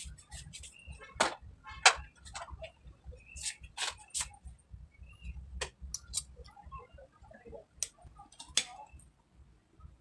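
Scattered sharp clicks and ticks at irregular intervals over a low rumble, with faint voices in the background.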